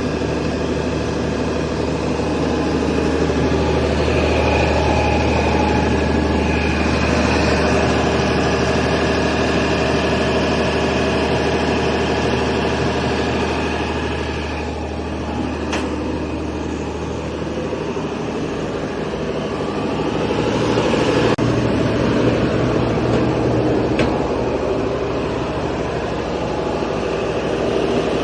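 Kaishan KS400 water well drilling rig running steadily with a deep engine hum. The deepest part of the hum drops away about two thirds of the way through, and a few sharp clicks sound near the end.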